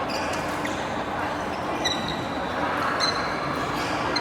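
Badminton rally on an indoor court: two sharp strikes about a second apart and short high-pitched shoe squeaks on the court floor, over a steady background hubbub.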